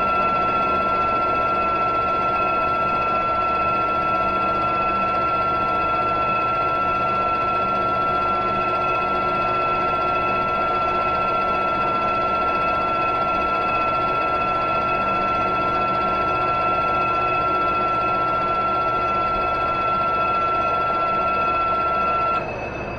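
Metal lathe turning down the outside of a shaft-coupler blank to make washers, a steady high whine over the machine's running. The whine cuts off sharply near the end, leaving the quieter run of the lathe.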